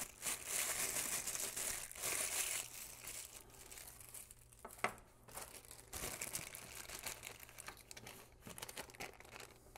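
Thin clear plastic bags crinkling as hands handle and unwrap small bagged plastic parts, with one sharp click a little before five seconds in. The crinkling is loudest in the first few seconds and picks up again in the second half.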